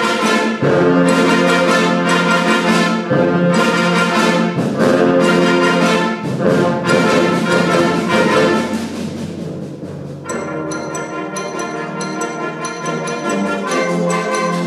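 High school concert band playing a brass-heavy, loud full-ensemble passage, then thinning to a quieter, lighter texture about ten seconds in.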